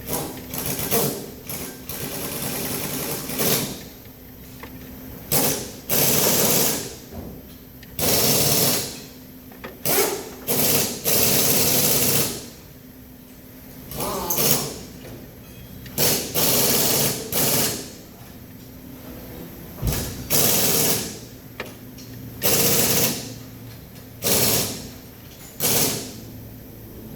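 A motorised hand power tool such as an impact wrench or power ratchet, run in well over a dozen short bursts of roughly half a second to a second each, with pauses between, as when fasteners are run in or out.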